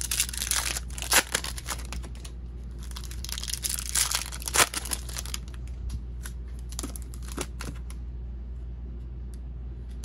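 Foil wrapper of a Topps baseball card pack being torn open and crinkled, in two bursts over the first five and a half seconds, followed by a few faint ticks.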